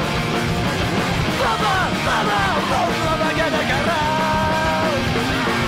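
Japanese punk rock song played by a full band, with a male singer yelling and singing over it and holding long notes in the second half.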